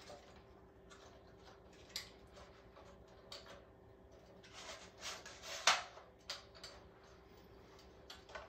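Wooden tripod with brass fittings being folded and handled: scattered clicks and knocks of its legs and metal hardware, with a cluster in the middle and the loudest sharp knock a little past halfway.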